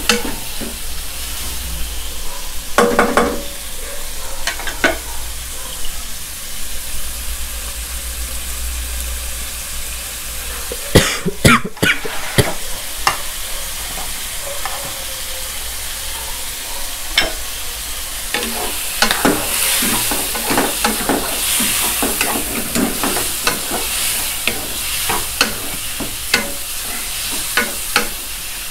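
Squid rings sizzling in a non-stick wok over high heat, stir-fried with a wooden spatula that scrapes and knocks against the pan. The knocks come scattered through, with a quick cluster about halfway and more frequent ones near the end.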